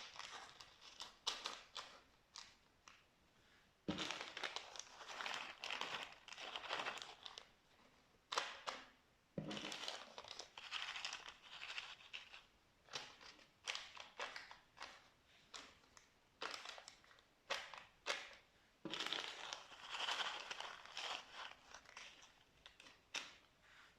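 Slime being squeezed, stretched and pressed by hand, giving bouts of sharp sticky pops and clicks a second or two long, with short pauses between.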